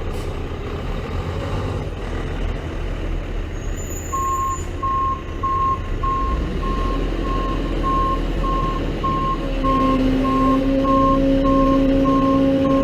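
Heavy diesel machinery rumbling, with a reversing alarm beeping about one and a half times a second from about four seconds in. A steady, louder engine drone comes in about ten seconds in.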